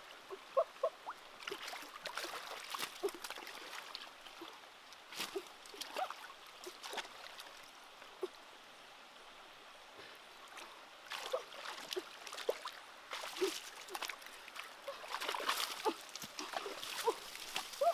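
Hands splashing and groping in a shallow, rocky stream, with many small plops and splashes over the steady trickle of running water. The splashing eases off for a few seconds in the middle and picks up again toward the end.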